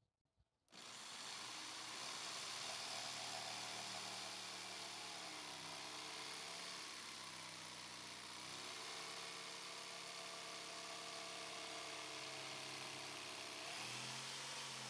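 Bosch jigsaw starting up about a second in and cutting a curve through a wooden board, the motor and blade running steadily, with the motor's pitch shifting a few times during the cut.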